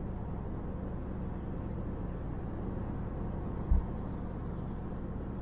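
Steady low rumble of a car on the move, road and engine noise heard inside the cabin, with one brief low thump about two-thirds of the way through.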